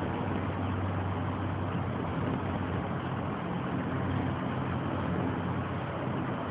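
A steady low mechanical hum over a constant hiss, unchanging throughout.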